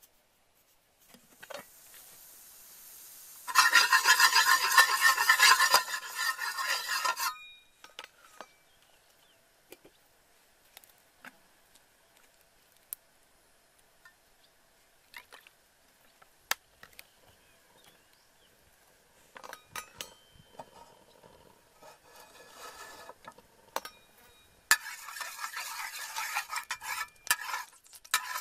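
A loud hissing burst of about four seconds a few seconds in, then scattered clicks and clinks of utensils against cookware. Near the end, oil in a nonstick frying pan starts sizzling while a metal spatula stirs and scrapes across the pan.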